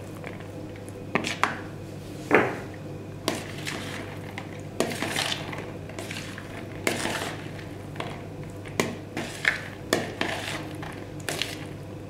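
A spoon stirring a chopped crab-stick and corn salad in plastic bowls: irregular scrapes and knocks against the bowl, the sharpest about two seconds in.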